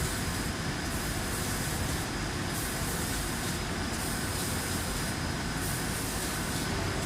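Two-head roller coating machine running steadily: an even mechanical hum and hiss with a faint high whine. The hiss dips and returns in a regular cycle about every second and a half.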